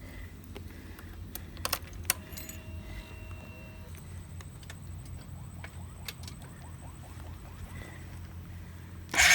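Keys jangling, with a few sharp clicks as the ignition key is worked on a Honda CRF150 dirt bike. Near the end the single-cylinder engine fires up loudly through its full-system aftermarket exhaust.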